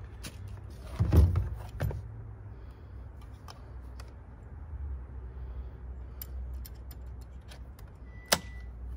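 Clicks and small metallic rattles of a new blade being fitted into a Metabo HPT cordless jigsaw's blade clamp, with a louder knock about a second in and a sharp click near the end; the saw's motor is not running.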